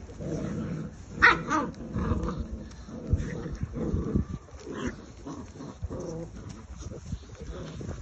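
Malinois puppies growling and yapping as they tug and wrestle over a rope toy, with one sharp yap about a second in.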